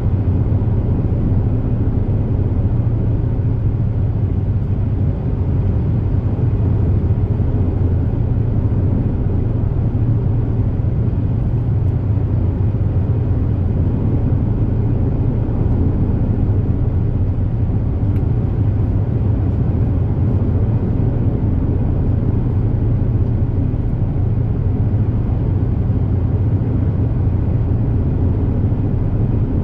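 Steady low engine drone and hull rumble of a high-speed passenger boat cruising at speed, heard aboard. It stays even throughout with no change in pitch.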